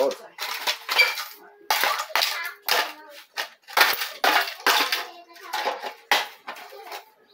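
A knife blade stabbing again and again into an old aluminium cooking pot, about three sharp metallic punctures a second, with the pot ringing briefly after the hits.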